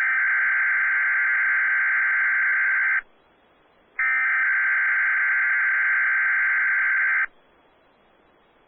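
Weather radio SAME digital alert header for a Required Weekly Test: two bursts of shrill, buzzy data tones, each about three seconds long, a second apart.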